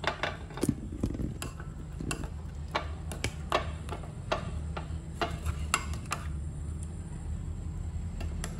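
A spoon stirring dipping sauce in a ceramic bowl, clinking and scraping against the sides in irregular taps that thin out after about six seconds, over a steady low hum.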